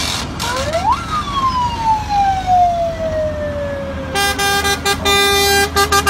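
A siren sweeps up in pitch and then winds slowly down over about three seconds. From about four seconds in, a truck's multi-tone telolet horn sounds a quick run of short notes with brief gaps between them.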